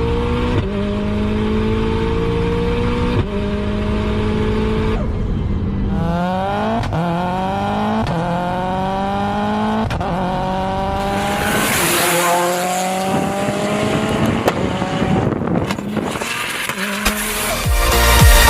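Tuned 850 hp Subaru WRX STI's turbocharged flat-four accelerating hard, its pitch climbing and dropping back through several gear changes. About eleven seconds in there is a loud rushing hiss.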